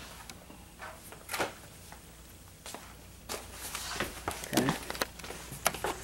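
Handling noise from a handheld camera being carried: scattered soft knocks and rustles, a few seconds apart.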